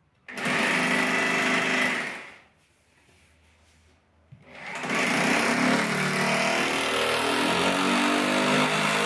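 Makita rotary hammer drilling into the wall at floor level, in two runs: a burst of about two seconds, then after a two-second pause a longer steady run. The holes are for fixing skirting boards.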